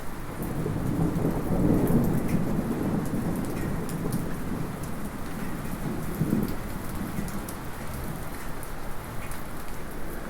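Light rain falling steadily with drops pattering, and distant thunder rumbling low, swelling from about a second in and again around six seconds in.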